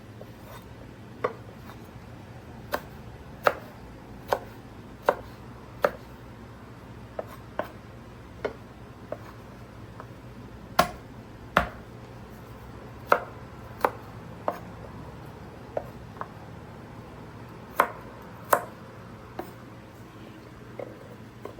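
Knife cutting food on a cutting board: single sharp chops at an uneven pace of about one a second, over a faint steady low hum.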